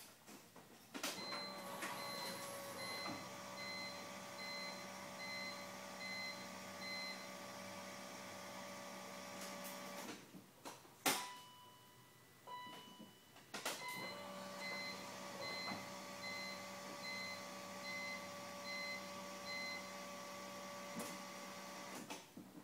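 A BMW M3 that won't start, tried twice: each attempt opens with a click, then a steady electric whir with a pulsing warning beep over it for the first several seconds, and ends in clicks without the engine ever catching.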